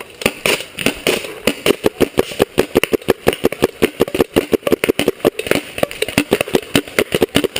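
Paintball marker firing a rapid, steady stream of shots, about eight a second.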